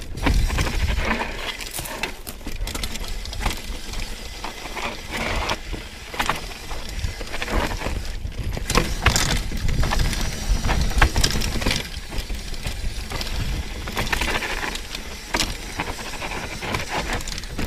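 Mountain bike running fast down a dry dirt singletrack: tyres crunching over loose dirt and gravel while the bike rattles and clatters over bumps in many quick knocks. A steady low rumble of wind on the camera microphone sits underneath.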